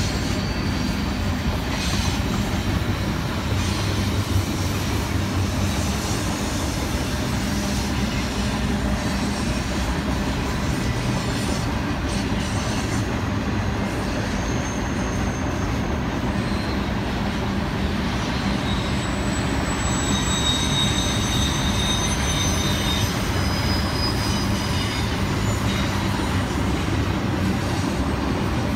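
Intermodal freight train's container well cars rolling past steadily, a continuous rumble and rush of wheels on rail. Faint high wheel squeals come and go in the second half.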